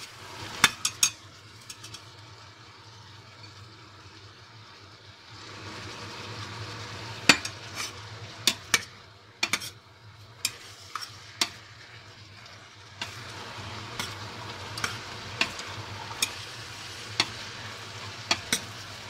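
Metal spoon stirring beans and vegetables in a stainless steel pressure-cooker pot, with many sharp clinks of the spoon against the pot. Under it a steady sizzle of the vegetables frying in oil, growing louder about five seconds in and again near the middle.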